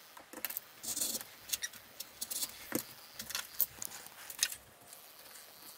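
Scissors cutting and the handling of a printed paper pattern and fabric: irregular short snips, clicks and rustles.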